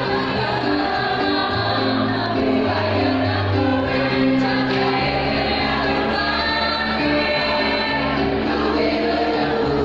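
Choir singing in several parts, with notes held and changing together every second or so.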